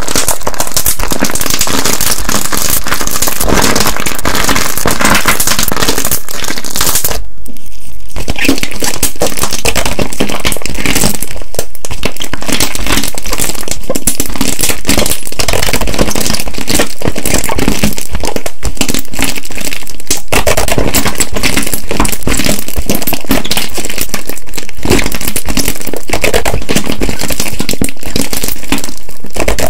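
Slime being squeezed and pressed close to the microphone, giving a dense run of many small clicks and pops, with a short break about seven seconds in.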